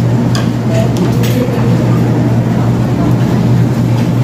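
A steady, loud low hum, with faint background voices and two short clicks, about half a second and just over a second in.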